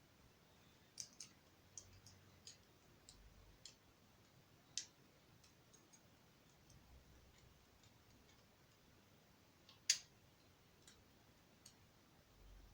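Scattered sharp clicks of small plastic Lego pieces being handled and snapped together, the loudest about ten seconds in, with near silence between.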